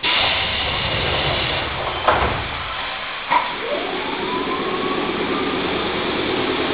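Electric train of the Nankai Kada Line heard from inside the car: steady running rumble and hiss, with two knocks about two and three seconds in. Then a motor whine rises quickly in pitch and levels off as the train accelerates.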